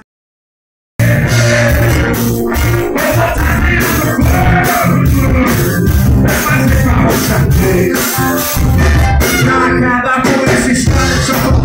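Live band playing loud: drum kit and electric guitars with a singer. It starts abruptly after about a second of silence.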